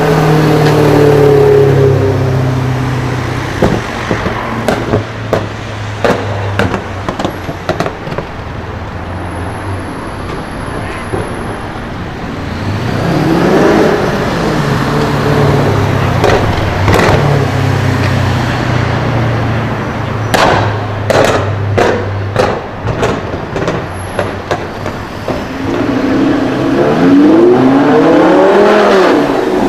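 Modified car engine revving through its exhaust, the pitch rising and falling twice, with two clusters of sharp pops and crackles from the exhaust in between.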